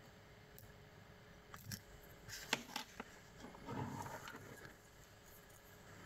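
Metal lock picks clicking and scraping in a brass euro-cylinder lock held in a vise: a few sharp metal clicks around two and a half seconds in, then a brief scraping rustle about a second later as the tools are shifted.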